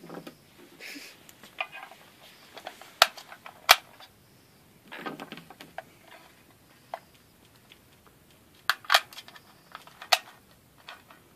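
Cartridges being pushed one at a time into a magazine: a series of sharp clicks and snaps, the loudest two about three seconds in and more around nine to ten seconds, with rustling of handling in between.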